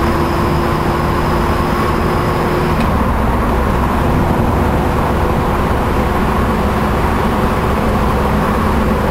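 Steady car running noise, engine and tyres on the road, heard from inside the cabin while driving through a road tunnel. A faint high whine stops about three seconds in.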